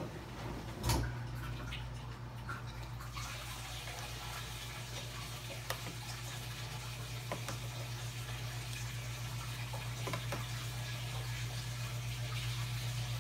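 A steady low hum under an even rushing hiss that grows louder about three seconds in, with a few faint clicks.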